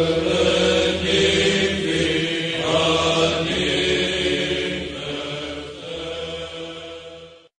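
Serbian Orthodox liturgical chanting, sustained and steady, which cuts off abruptly near the end.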